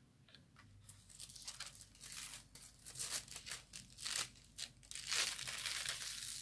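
Thin metallic hot-foil sheet crinkling and crackling as it is peeled up off the card and rolled back. The crackles come in quick bursts and turn into a steadier rustle about five seconds in.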